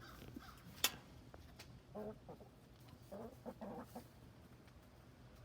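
Chickens clucking quietly in a few short calls, with one sharp click a little under a second in.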